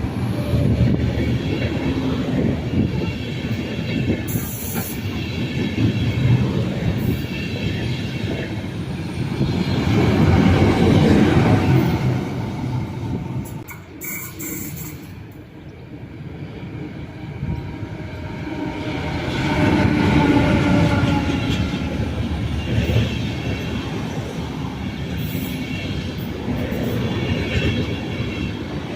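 Trains moving along the track: steady wheel-on-rail rolling noise with squealing tones from the wheels, swelling about a third of the way in and again about two-thirds of the way through, with a quieter spell in between.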